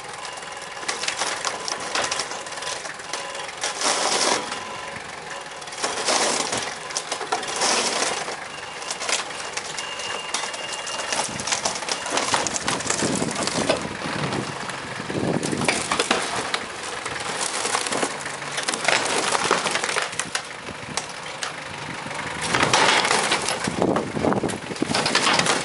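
A tractor's front loader tearing down a wooden barn lean-to with aluminum sheet roofing: wood cracking and splintering and metal roofing sheets crumpling and scraping in repeated crunching bursts, heaviest near the end, with the tractor's engine running underneath.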